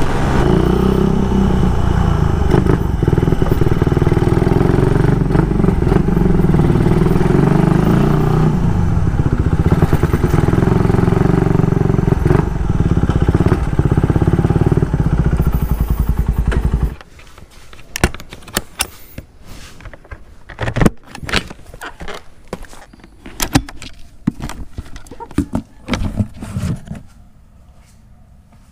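Motorcycle engine running with heavy wind rush on the helmet-mounted microphone; the sound stops abruptly about two-thirds of the way through. After it come scattered clicks, knocks and rattles of gear being handled.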